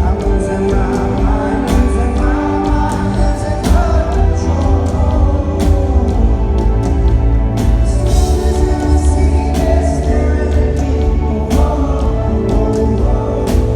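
Rock band playing live, a lead vocal over heavy bass and a steady drum beat, with strong hits about every two seconds.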